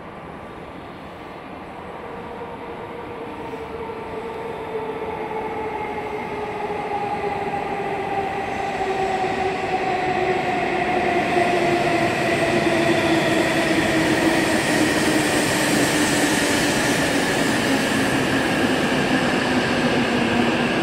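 Hokuriku Shinkansen E7/W7 series train pulling in along the platform and braking. Its motor whine, several tones together, glides slowly down in pitch as the train slows, over a rush of the passing train that grows louder through the first half and then holds.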